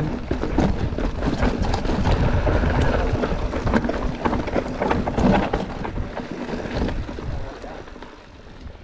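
Mountain bike riding down a rocky trail: wind buffeting the microphone, with the bike clattering and knocking over rocks. It dies down near the end as the bike slows.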